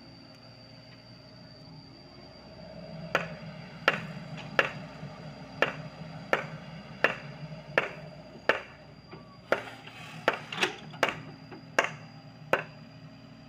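Sany SY55C mini excavator's engine running steadily, working harder about two and a half seconds in, then about fourteen sharp knocks at a regular pace, roughly one every three quarters of a second, from the bucket and its linkage working the clay.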